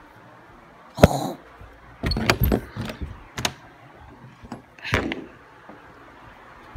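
Handling noise: a sharp knock about a second in, then a cluster of knocks and scrapes, a few single taps, and a rougher bump near the end, as objects and the phone are moved about.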